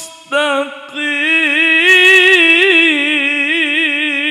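A male Quran reciter (qari) chants melodic tilawah into a microphone, drawing one syllable out into a long line with quick wavering turns of pitch. The voice breaks off twice briefly in the first second, once with a breath-like hiss, before the long held phrase.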